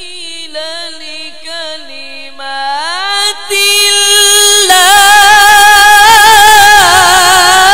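A qari's voice reciting the Quran in the melodic tajweed style, drawing out one long unbroken phrase through a microphone. The held note glides upward about a third of the way in, then grows much louder past halfway, with wavering ornaments on the sustained pitch.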